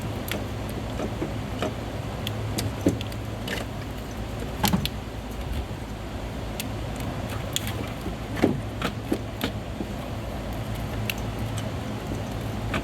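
Scattered, irregular metallic clinks and knocks as an unbolted car A/C compressor is shifted and bumped against engine-bay parts in an attempt to pull it out, the loudest knocks about a third and two thirds of the way through. A steady low hum runs underneath.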